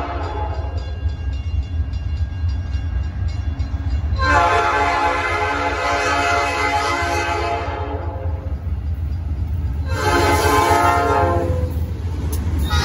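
Freight locomotive's Nathan P5 five-chime air horn sounding several chords: one trailing off just after the start, a long one about four seconds in lasting three or four seconds, a shorter one about ten seconds in, and another starting near the end. A steady low rumble from the approaching train runs underneath.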